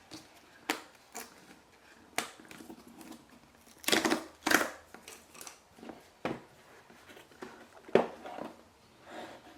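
A sealed box and its packaging being opened by hand: a string of sharp clicks and short crackling tears, loudest twice about four seconds in and again near eight seconds.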